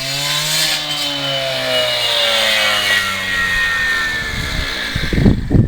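Trench-digging machine's engine running hard with a high whine, its pitch sagging slowly as it works; a few low thumps near the end.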